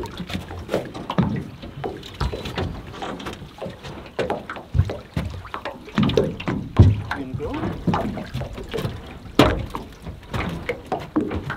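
Irregular knocks and hollow thumps on an aluminum boat hull as people and a dog shift about aboard while it sits beached.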